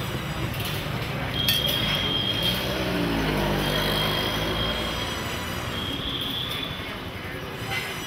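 Busy market street noise with a thin high-pitched squeal that comes and goes several times, and a couple of short metallic clicks.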